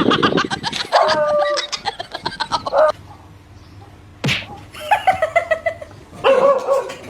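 A dog yipping and whining in rapid, pitched bursts while it is teased. There is a sharp smack about four seconds in.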